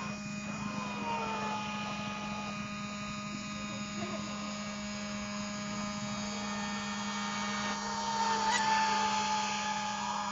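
Radio-controlled speedboat's motor whining as it runs across the water, its pitch gliding up and down. It grows louder and falls in pitch as the boat passes close about eight seconds in.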